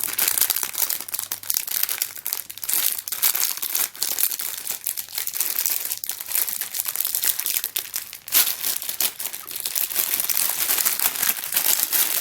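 Packaging crinkling and rustling as it is handled and unwrapped, with many small crackles throughout.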